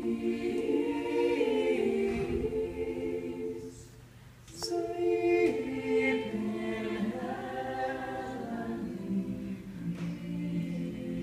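Several voices singing together in long held notes, unaccompanied. The singing breaks off briefly about four seconds in, then starts again.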